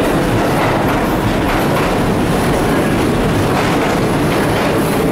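New York City subway train running through the station: a loud, steady rumble with irregular wheel clatter.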